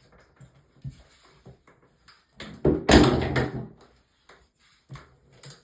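Shower head parts being handled and taken apart: light clicks and knocks, with one loud clatter lasting about a second near the middle.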